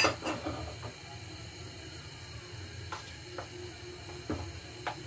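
A sharp click at the start, then a few scattered light ticks over a low steady hum.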